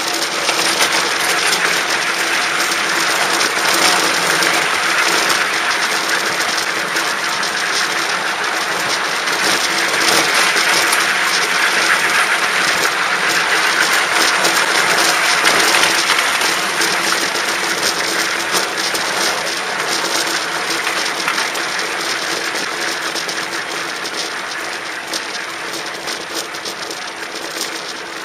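Park railway train running past, its wheels clattering and clicking on the track under a steady hum; the sound swells to a peak around the middle and fades toward the end.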